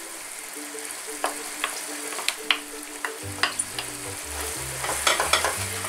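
Wooden spoon scraping and tapping baked feta out of a baking dish into a pan of rigatoni: a series of scattered clicks and scrapes over a steady hiss. Background music plays throughout, with bass notes coming in about three seconds in.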